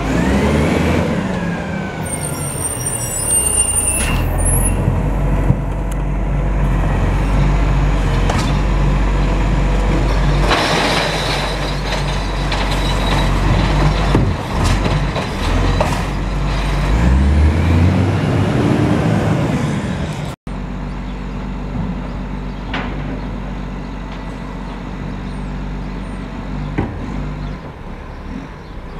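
Diesel engine of a side-loader recycling truck running and pulling away, the engine pitch rising and falling as it revs through the gears, with a high-pitched squeal for a few seconds near the start. After a short break about 20 seconds in, a quieter, steady engine drone continues.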